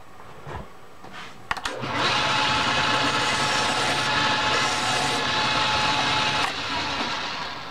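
Metal lathe switched on after a click, its spindle running with a steady motor hum and whine while a hand file rasps against the spinning steel workpiece; about two-thirds of the way in the motor is switched off and the spindle coasts down.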